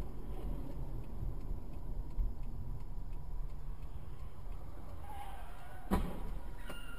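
Steady engine and road rumble inside a moving car's cabin, with faint regular ticking. Near the end comes a single sharp thump, and a steady electronic beep starts just after it.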